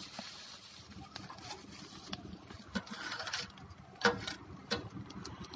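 Plastic waste burning in a small biomass stove, with scattered crackles and clicks and a few sharper knocks as metal tongs push a plastic bag down into the burner.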